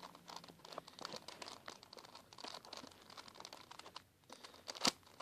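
A plastic 4x4x4 Rubik's cube being turned by hand: faint, irregular clicking and rattling of the layers, with one sharper click near the end.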